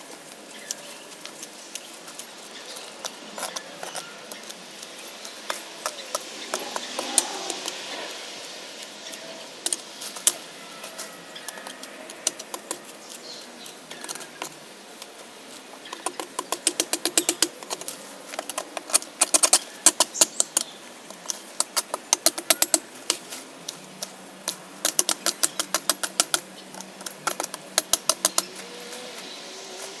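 Long-handled loppers snipping through overgrown brush and vines, with sharp clicks and snaps of cut branches. The clicks are scattered at first and come in quick runs in the second half.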